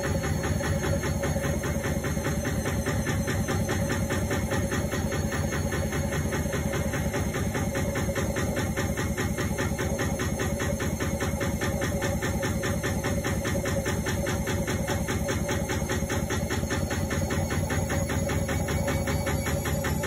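Indesit front-loading washing machine running on a quick wash: a steady mechanical running noise with a fast, even pulsing.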